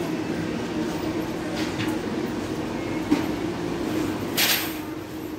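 Amusement arcade din: a steady hum and rumble from many games machines running together. There is a sharp click about three seconds in and a short hiss about four and a half seconds in.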